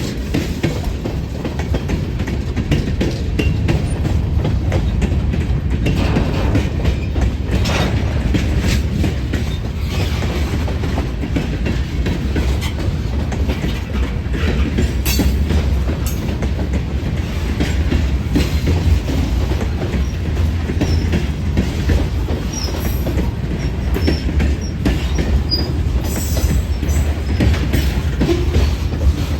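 Freight train cars rolling past: a steady rumble of steel wheels on rail with irregular clicking and clatter over the rail joints, and a few brief faint wheel squeals in the later part.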